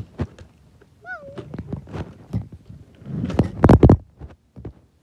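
A hand and fingers rubbing and knocking against the phone right at its microphone: a run of clicks and knocks, with a loud scraping rustle from about three to four seconds in. A short, high wavering tone sounds about a second in.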